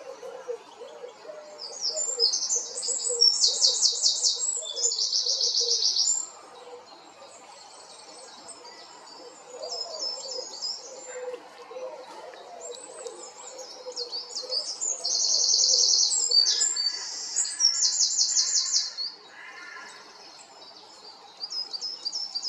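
Songbird singing high, rapid trills and twittering phrases, loudest in two long trilled bursts, with softer twittering between them.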